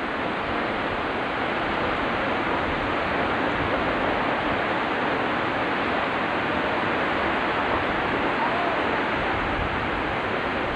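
Horseshoe Falls at Niagara pouring over its crest: a steady, unbroken rush of falling water with no rise or fall.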